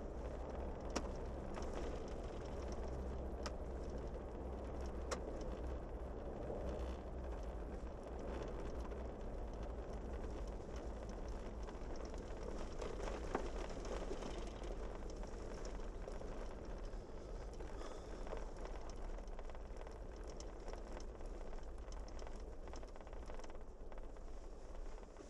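Steady road noise of a vehicle driving on a snowy gravel road: a low rumble of engine and tyres with a rough hiss from the road surface, and a few sharp ticks.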